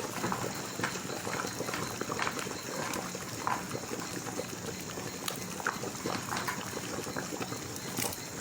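Pot of red bean and lamb soup bubbling at a boil, with a few short clicks and splashes as pieces of ground provision are dropped in.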